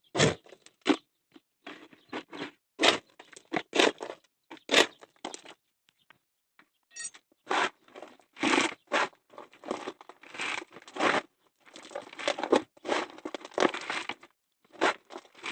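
Dry concrete mix of cement, sand and gravel aggregate being scooped up, the stones crunching and scraping in irregular bursts, with a short pause about six seconds in.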